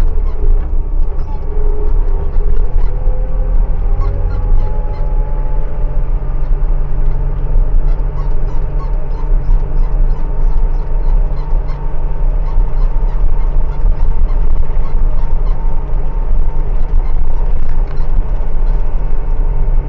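An engine running steadily, a loud low rumble with a steady hum above it whose pitch shifts slightly in the first few seconds.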